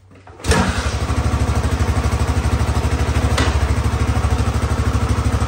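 1979 Honda XR500's single-cylinder four-stroke engine being kick-started: it fires about half a second in and settles straight into a steady idle with an even, rapid beat. A single sharp click sounds about three seconds in.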